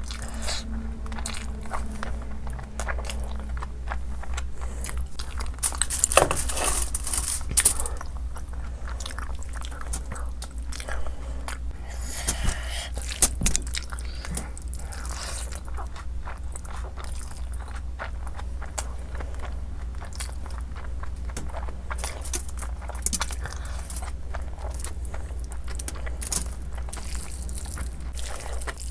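Close-miked eating of Schezwan noodles: chewing and biting with many short wet clicks and smacks, a few louder bursts around six to eight seconds and thirteen seconds in, over a steady low hum.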